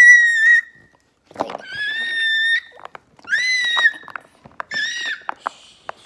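A child's high-pitched squeals, four of them, each under a second, with soft pops of a silicone pop-it fidget being pressed between them.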